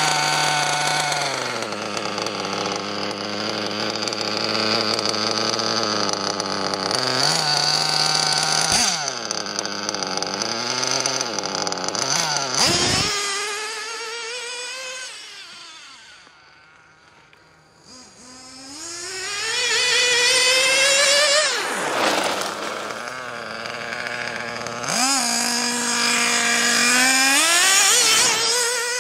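Argus .21 nitro engine of a 1/8-scale Losi 8ight 2.0 buggy idling steadily for several seconds, then revving up and down as the buggy drives off. It fades as the buggy goes into the distance, about halfway through, then comes back loud with rising revs as it accelerates toward the camera.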